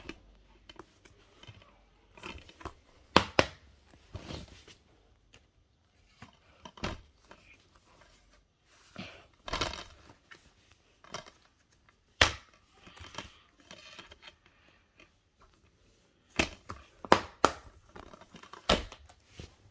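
Plastic DVD cases being handled: irregular clicks, taps and rustling, with a few sharp snaps.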